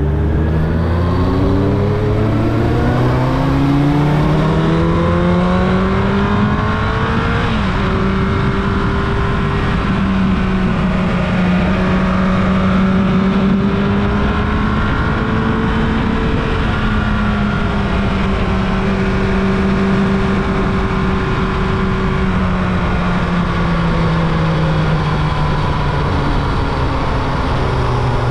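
Carbureted Yamaha YZF-R1's inline-four engine accelerating hard with a rising pitch, a shift about seven seconds in, then running at roughly steady revs before slowly winding down.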